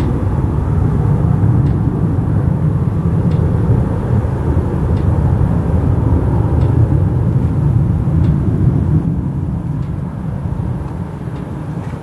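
Boeing 707's four Pratt & Whitney JT3D turbofans giving a deep, steady jet rumble as the aircraft flies away and climbs, fading over the last few seconds.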